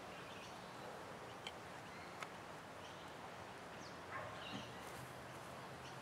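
Quiet outdoor background with two faint sharp clicks about a second and a half and two seconds in, from a steel hive tool prying at the seal the bees have built between the wooden hive boxes.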